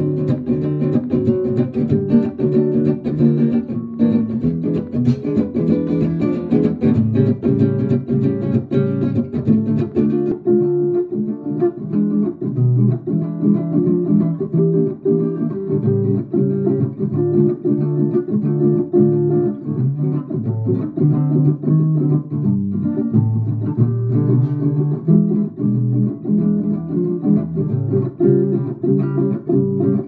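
Marco La Manna acoustic guitar picked with a plectrum, a steady stream of single notes and chords, heard through its Antonio Surdo pickup and a Laney LA35C acoustic amplifier. The highest treble drops away about ten seconds in.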